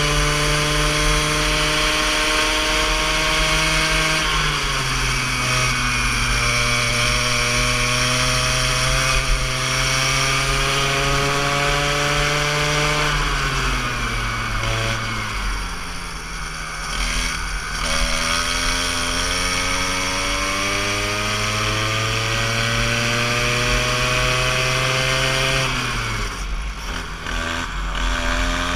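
Go-kart engine running under throttle, its pitch climbing steadily along the straights and dropping sharply as the kart slows for corners: a few seconds in, around the middle and near the end.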